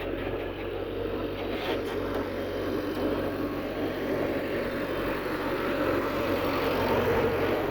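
Heavy diesel engine of earth-moving machinery running steadily, growing a little louder toward the end.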